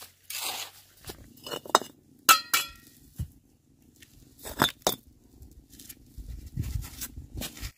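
A handful of sharp clinks and knocks of hard objects struck or set down together. The loudest, a little over two seconds in, rings briefly, and a low rumble of handling follows near the end.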